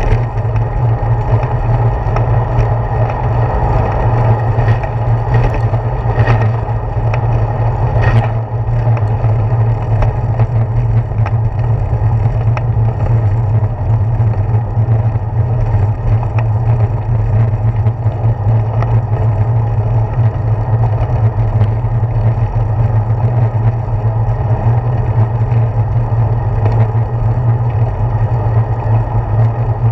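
Steady wind rumble and road vibration picked up by a handlebar-mounted GoPro Hero 4 while a bicycle rolls along a paved path, with a couple of sharp knocks from bumps in the first third.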